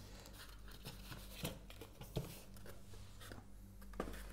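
Faint rustling of a clear plastic bag and handling of a model freight car and its packaging, with three light clicks.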